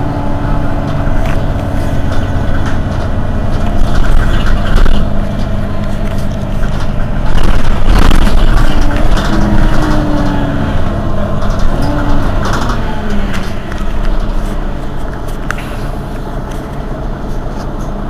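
Mercedes-Benz Citaro city bus's diesel engine idling steadily while the bus stands at a stop, heard close behind the rear engine compartment. A few knocks come around the middle, and the running grows a little quieter near the end.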